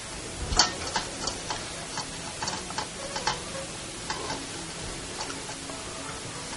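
Light, irregular clicks and taps of chicken pieces being breaded: dredged through bowls of cornstarch and egg wash, shaken off and set on a wire rack. The taps come thickest in the first half and thin out later.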